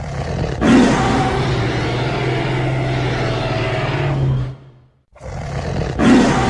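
Dinosaur roar sound effect: one long, rough roar of about four seconds that fades out. The same roar starts again about five seconds in.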